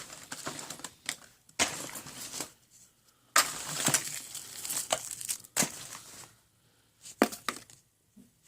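Rummaging through a box of small sewing notions: a run of sharp clatters and crinkling rustles as items and bags are picked up and tossed aside, dying away near the end.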